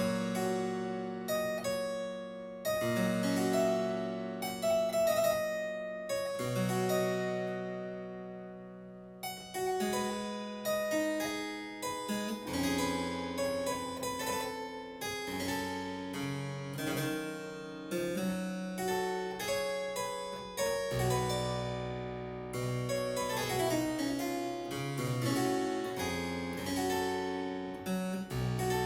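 Solo harpsichord playing a Baroque lament: plucked chords and melodic lines, each note starting crisply and fading.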